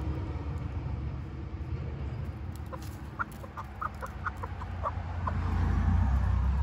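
Silkie chicken clucking: a quick run of about a dozen short clucks, starting a little under three seconds in and lasting about two and a half seconds. A steady low rumble sits beneath.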